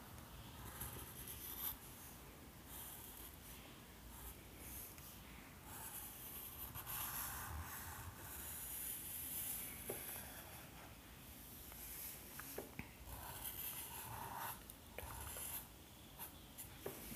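Black Sharpie permanent marker inking lines on paper: faint, irregular scratchy strokes of the felt tip, with a few small ticks.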